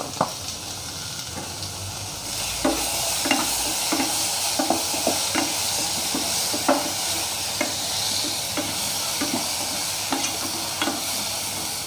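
Chopped tomato and spices sautéing in sunflower oil in a nonstick pot, sizzling steadily, while a wooden spatula stirs and scrapes against the pan in short repeated strokes. The sizzle grows louder about two seconds in.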